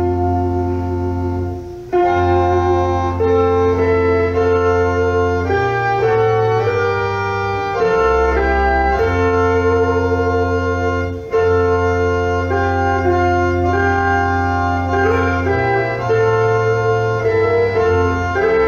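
Church organ and electric guitar playing an instrumental duet: held organ chords over deep bass notes that change every few seconds, with short breaks about two seconds in and near the middle, and wavering guitar notes on top.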